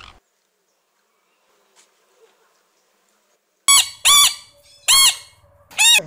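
Giant panda giving four short, high squealing calls in quick succession, each rising and falling in pitch, starting about two-thirds of the way in after a few seconds of near quiet. The tail end of a harsher call cuts off at the very start.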